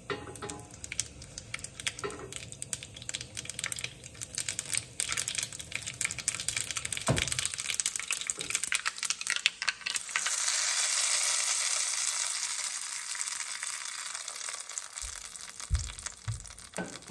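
Mustard seeds, dried red chillies and curry leaves crackling in hot oil in a small pan, a rapid scatter of sharp pops. About ten seconds in, a loud sizzling hiss as the hot tempering is poured onto coconut chutney, dying away over several seconds.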